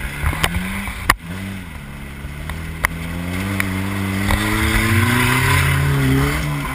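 Jeep Wrangler engine under hard acceleration toward a jump ramp, its pitch climbing steadily for several seconds and then falling away near the end as it leaves the ramp. A few sharp knocks sound in the first three seconds.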